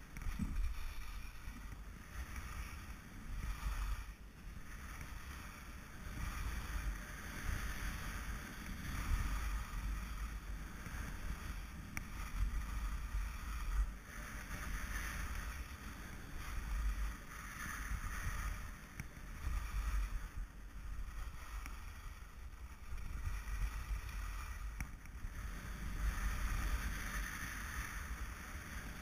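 Skis sliding and scraping over packed snow on a downhill run, the hiss swelling and fading in waves every few seconds, with wind rumbling on the microphone throughout.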